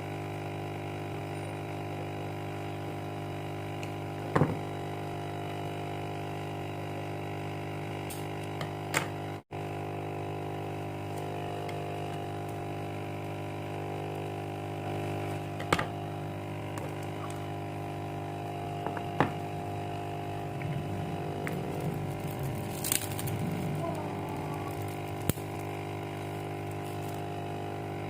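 A steady, unchanging hum, with a few sharp clicks and knocks scattered through it and a patch of light handling noise about three-quarters of the way in.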